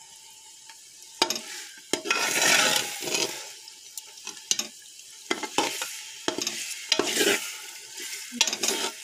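Perforated steel spoon stirring diced potatoes, peas and carrots frying in masala in an aluminium pressure cooker: repeated scraping strokes with clicks against the pot, about one a second, over sizzling.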